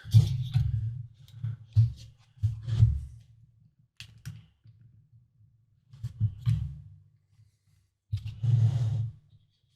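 Scattered clicks and knocks of things being handled, coming in five or six short clusters with quiet gaps between them.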